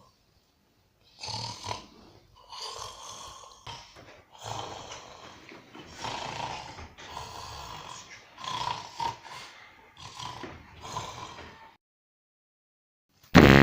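A man snoring in a run of loud, rasping snores, about one every second. Near the end the snoring stops, and after a short gap a loud music track cuts in suddenly.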